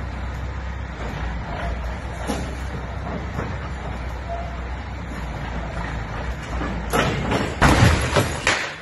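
A heavy concrete barrier crashes down onto a parked car, a loud crash of several impacts about seven seconds in. A steady low engine sound runs underneath.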